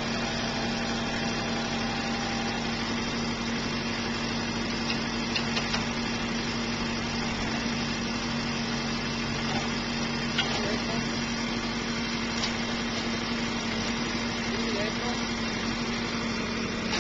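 Vehicle engine running steadily at constant speed, driving the hydraulics of a TFC 3500 Versus forestry crane as its boom is moved, with a steady low hum.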